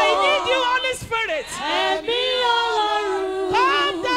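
A woman singing into a microphone over a PA, with long held notes and sliding pitch.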